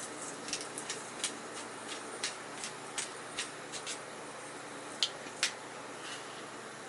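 Irregular sharp crackles and pops over a steady low hiss, from a wood campfire and the paella cooking on it in a Turk carbon-steel frying pan. The pops come thick in the first few seconds, with two louder ones about five seconds in.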